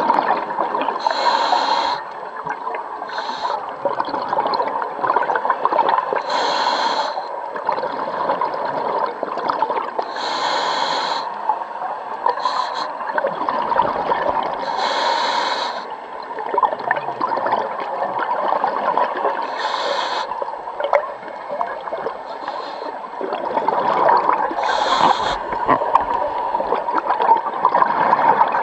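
Scuba regulator breathing heard underwater: a short hiss of inhalation every few seconds, with a steady bubbling and gurgling of exhaled air in between.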